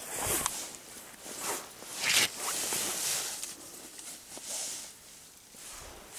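Rustling and swishing of a nylon winter jacket and camera handling: a string of short, uneven scrapes and swishes.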